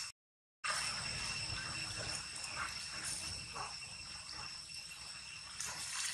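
Insects making a steady high-pitched drone at several pitches, with the whole track cutting out for about half a second just after the start.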